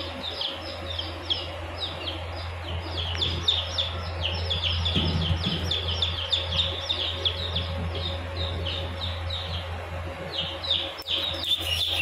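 A brood of Japanese Shamo chicks, ten to fifteen days old, peeping without pause: many short, high, falling chirps overlapping one another, over a steady low hum.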